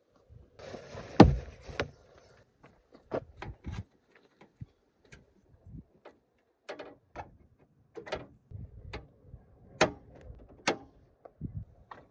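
Irregular short knocks and clicks, with a louder thump and a brief rustle about a second in.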